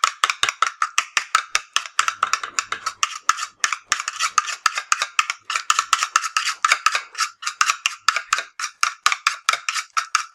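Spoon stirring and beating thick slime against the side of a small container: a fast, steady clatter of about six clicks a second.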